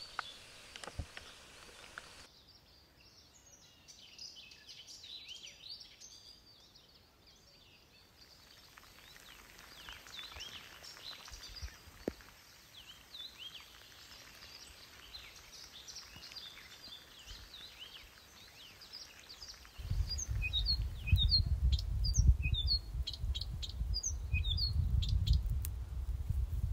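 Birds chirping and calling over a quiet background. About twenty seconds in, a loud low rumble starts, with sharper chirps over it.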